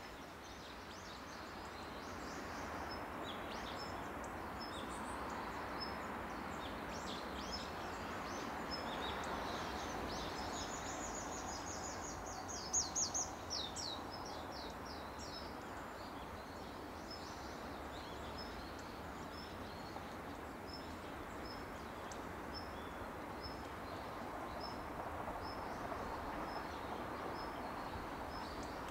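Songbirds calling over a steady distant outdoor rumble: a fast trill with a few loud chirps about halfway through, then one bird repeating a short high call about once a second.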